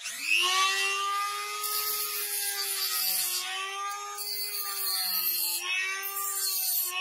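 Small rotary tool with a cutting disc spinning up to speed, then cutting into a black plastic housing. There are three passes, each adding a harsh high hiss while the motor's steady whine dips slightly under the load.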